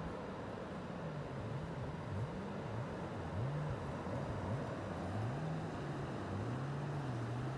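Sea surf and wind washing steadily, with a low engine hum that rises and falls in pitch over the top.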